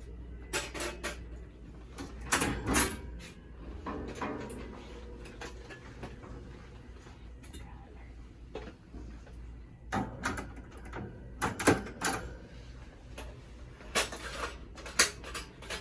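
Irregular knocks, clicks and rattles of a cage door and handling at a kennel, in several clusters, with some rustling between, over a steady low hum.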